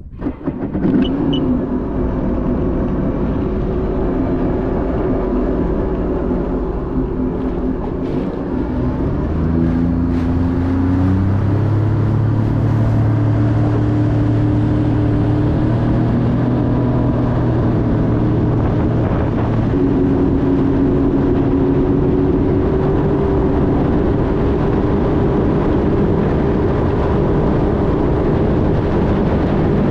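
Supercharged 1630 cc engine of a 2016 Sea-Doo RXP 300 jet ski running at speed, its note climbing about ten seconds in and then holding steady, under heavy wind and water rush.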